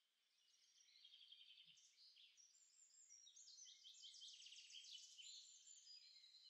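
Faint songbird song: a long, unbroken run of rapid high trills and quick stepped notes that builds over the first second or so and carries on throughout.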